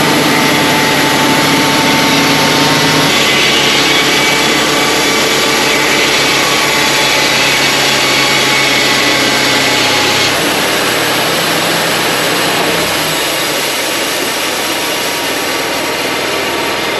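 Wood-Mizer LT35 portable band sawmill running loud and steady while milling a white pine log. Its tone shifts about three seconds in, and it drops slightly in level about ten seconds in.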